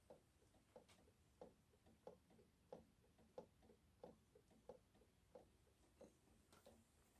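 Faint, regular ticking of Maneki Neko waving-cat figurines' arm-swinging mechanisms, about one and a half clear ticks a second with softer ticks in between.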